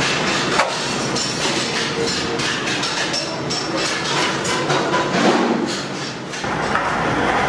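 Busy workshop noise: a steady clatter with frequent short metallic clinks and knocks.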